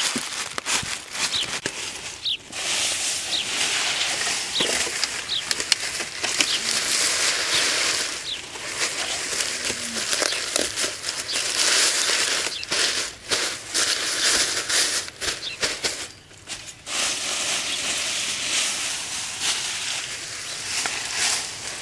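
Rustling and crackling of fresh green leaf thatch being handled and pressed onto a bamboo roof frame, in long stretches broken by a few short pauses.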